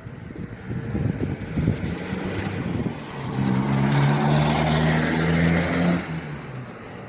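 A motor vehicle passing close by on the street: its engine sound builds about three seconds in, is loudest for a few seconds, then falls away near the end.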